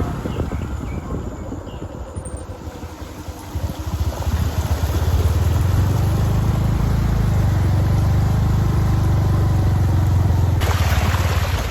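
Motorcycle engine running, its steady low drone growing louder about four seconds in and holding. A short rush of hissing noise comes near the end.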